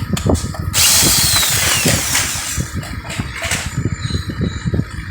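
Electric drill-driver running for about a second and a half, backing a screw out of the pressure washer's plastic housing, then a quieter stretch with small knocks of handling.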